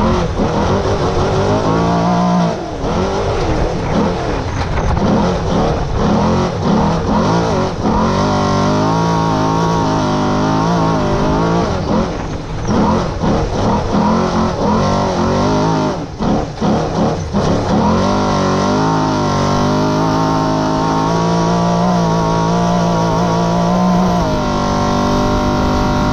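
Off-road race vehicle's engine at full throttle, revving up and down through the gears, with several brief sharp dips in revs around the middle, then held at steady high revs toward the end.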